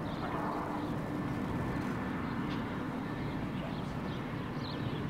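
Diesel freight locomotive engines running steadily: a constant low drone with a steady hum. A few faint bird chirps sound over it.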